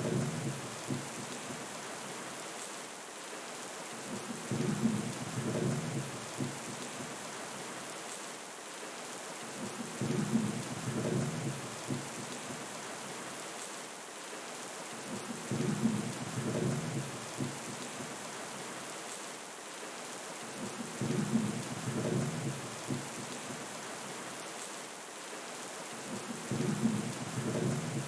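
Steady rain with low rolls of thunder that come back at even spacing, about every five and a half seconds, each lasting a second or two.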